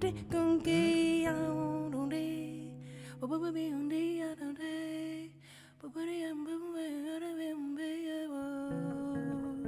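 A woman's voice singing without words, one wavering melodic line, over a low guitar note held steady beneath it through an amplifier. The voice drops out briefly about halfway, then carries on.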